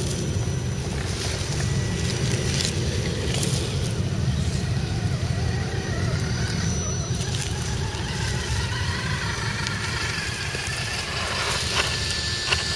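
Steady wind rumble on the microphone, with the faint whine of scale RC crawler trucks' electric motors and gears as they drive past, rising in pitch in the second half, and a few light clicks.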